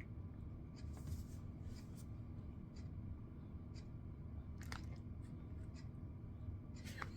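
Faint chewing of a soft-baked mini cookie, with a few light, scattered clicks over a quiet room hum.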